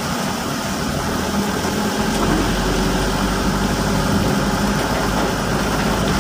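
A vehicle engine running steadily as it moves along, with the even hiss of heavy rain behind it; a deeper low rumble comes in about two seconds in.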